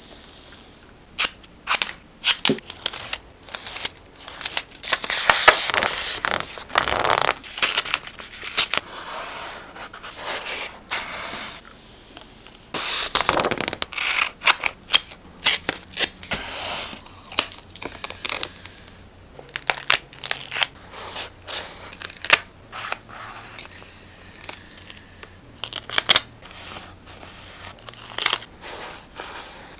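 Close-up paper-craft sounds: scissors snipping and paper rustling and crinkling. Many sharp snips and clicks, with longer stretches of rustling about five and thirteen seconds in.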